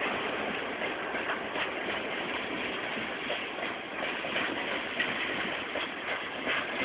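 Ballast hopper wagons of a freight train rolling past: a steady rumble of wheels on rails with scattered clicks and knocks.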